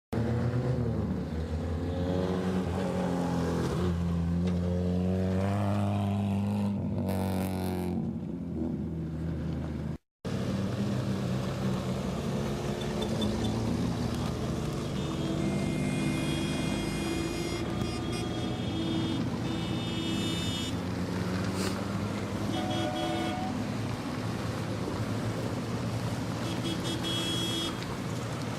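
Renault Super 5 car engines running, rising and falling in pitch as they rev, then a steadier engine hum after an abrupt cut about ten seconds in, with intermittent high-pitched tones over it.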